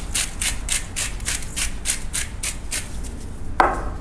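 Salt and pepper being dispensed onto a seafood mix in quick, gritty, rhythmic strokes, about four a second. The strokes stop about three seconds in, and a short pitched squeak-like sound follows.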